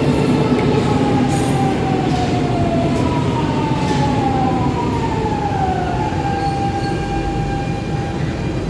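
Lisbon Metro electric train slowing to a stop at a station platform: a steady running rumble with an electric whine that falls in pitch in several steps as it brakes, then levels off to a steady tone near the end.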